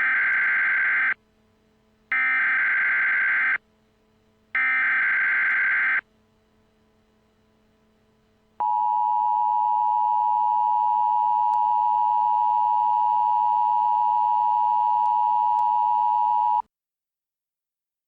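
Emergency Alert System SAME header: three short bursts of screeching digital data about a second apart. Then the EAS two-tone attention signal comes in, a steady harsh tone held for about eight seconds and cut off suddenly, which announces the start of an alert.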